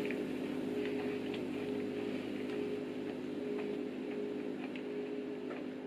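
Quiet eating sounds: a few faint, scattered clicks while a mouthful of creamy cake is chewed, over a steady low hum.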